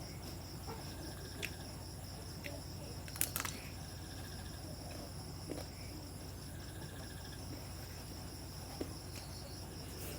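A steady high-pitched chirring drone over a low hum, with a few faint clicks and a short clatter of sharper clicks about three seconds in.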